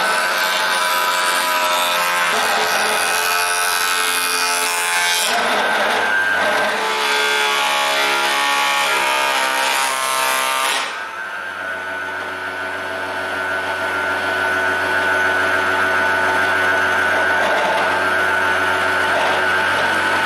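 Proxxon DH 40 benchtop thickness planer running as a thin strip of wood is planed through it, the cutterhead noise over the motor's steady whine. About eleven seconds in the cutting stops and the planer runs on with no wood in it.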